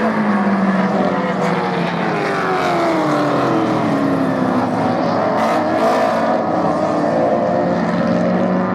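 Racing car engines running at high revs, several engine notes overlapping. About halfway through, one engine note falls steadily in pitch as a car goes past or lifts off.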